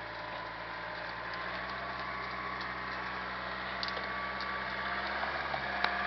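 Tractor engine running steadily under a faint high whine, with scattered light ticks and one sharp crack near the end.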